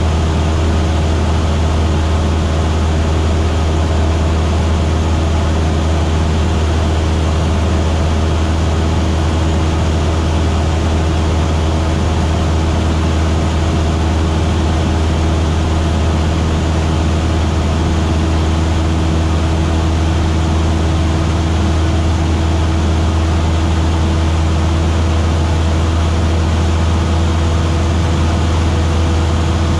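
Single-engine light aircraft's piston engine and propeller running steadily in cruise, heard from inside the cabin: a strong, constant low hum with a few steady higher tones over an even rush of air.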